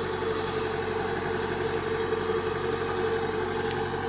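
Engine of heavy farm or recovery machinery running steadily at a constant speed, a continuous even drone with no change in pitch.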